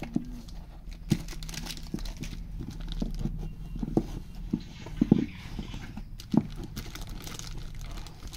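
Irregular knocks and clicks of things being handled and set down, over a steady low hum.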